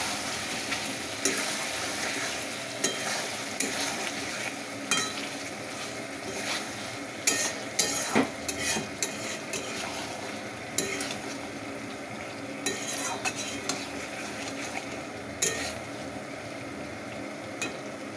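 Chicken and potato curry sizzling in a pan while a flat steel spatula stirs it, its edge scraping and clicking against the pan, the scrapes thickest about halfway through. The curry is being fried down with a roasted spice mix.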